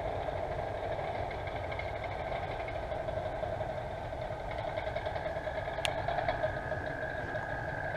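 Steady mechanical hum like an idling engine, with a low rumble under it. A thin high tone grows stronger about five seconds in, and there is a single click near six seconds.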